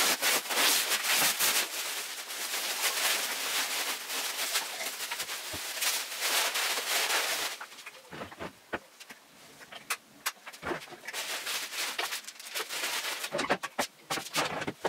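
Plastic wrapping crinkling and rustling loudly as it is pulled off a desk and crumpled. About seven seconds in it gives way to quieter scattered rustles, clicks and knocks.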